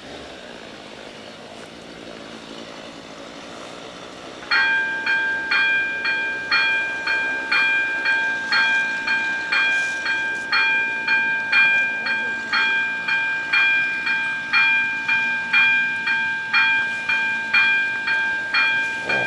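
AŽD 71 level-crossing warning bells start ringing about four and a half seconds in, a steady rapid ringing of about two strikes a second. This signals that the crossing is activating for an approaching train. Before the bells there is only faint steady background noise.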